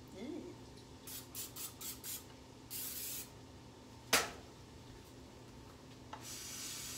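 Aerosol cooking-oil spray can spraying: about five short spurts, then one longer spray about three seconds in. About a second later comes a single sharp knock, the loudest sound, and near the end a steady hiss begins.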